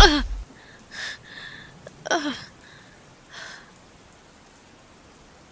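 A woman's heavy, tired breathing and a short falling groan about two seconds in, over steady rain. A sharp thump comes right at the start.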